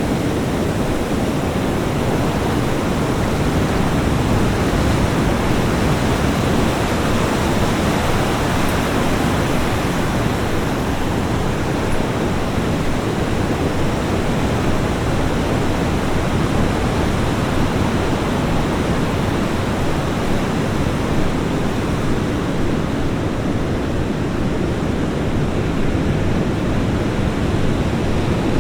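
Ocean surf washing onto a beach: a steady, dense rush of breaking waves with only gentle swells in loudness and no distinct single wave crash.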